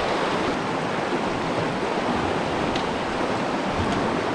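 Steady rush of water from a small river rapids.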